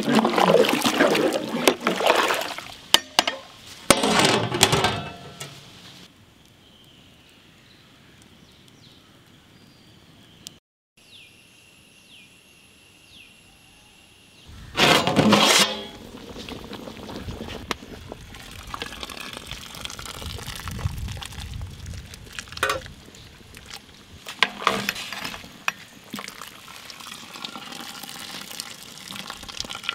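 Water sloshing and pouring in a large aluminium pot of beef boiling in broth, in several loud bursts, with a few sharp metal clinks.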